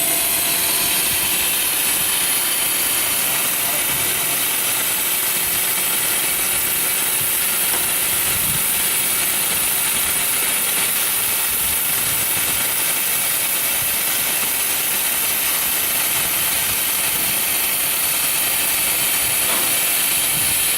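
Cincinnati EC380 grinder running steadily through a test grind: an unbroken, loud hiss, strongest high up, with faint steady machine tones beneath.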